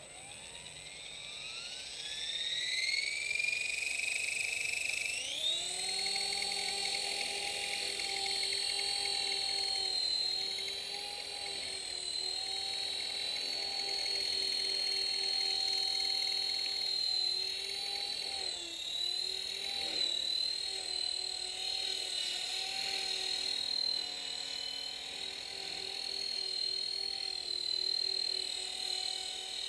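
Electric motor and rotor of a Dynam E-Razor 450 RC helicopter spooling up with a rising whine, stepping up in pitch about five seconds in, then holding a steady high whine in flight. The pitch sags briefly a couple of times about two-thirds of the way through.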